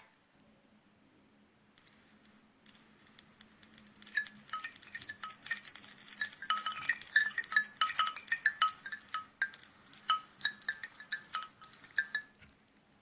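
Nokia C6-00 ringtone of many quick, high chiming notes in an irregular cluster, starting about two seconds in and stopping shortly before the end.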